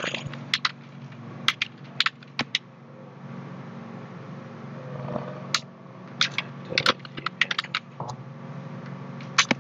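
Computer keyboard typing: irregular clusters of keystrokes with a sparser pause in the middle, over a low steady hum.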